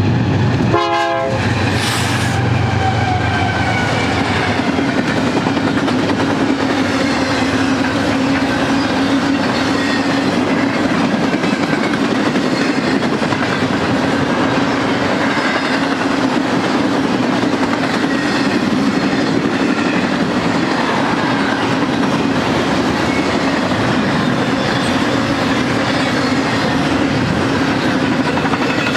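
Double-stack intermodal train passing close by, led by BNSF GE C44-9W diesel locomotives. There is a short horn sound about a second in and a low engine drone that fades as the locomotives go by. Then comes the steady rumble and clatter of the container cars' wheels on the rail, with faint high squeals.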